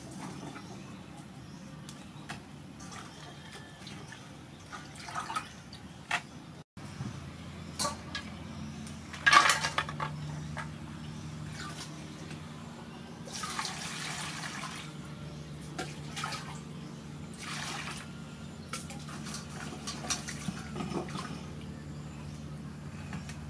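Lemongrass stalks and herbs being washed by hand in a stainless steel bowl of water: splashing, dripping and sloshing, with water scooped and poured from a plastic dipper. The loudest splash comes about nine seconds in, and a longer pour about fourteen seconds in.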